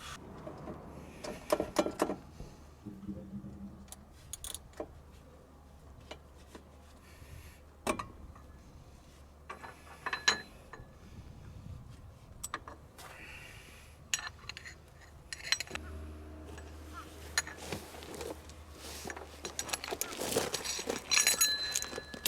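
Metal tools and parts clinking and clattering as they are handled, in scattered short knocks with a busier cluster near the end.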